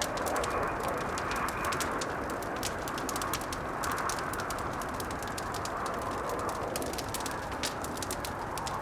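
Wood fire crackling with rapid, irregular small pops, over a steady howling blizzard wind that slowly rises and falls in pitch.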